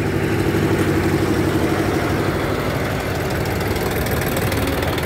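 Engine of a small VEB narrow-gauge diesel locomotive running steadily as it passes close by, with an old tractor's engine running close by in the second half.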